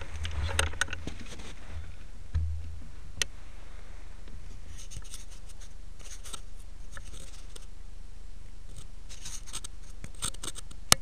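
Scratchy rustling and light clicks of clothing and gear rubbing close to a head-mounted camera's microphone, over a steady low rumble, with one sharp snap near the end.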